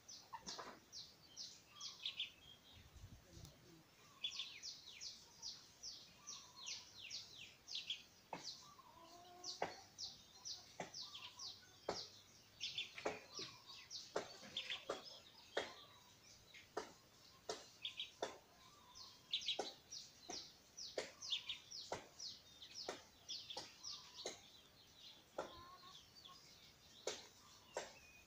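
Young streak-eared bulbul calling: quick runs of short, high, downward-sliding notes, repeated throughout, with sharp clicks scattered among them.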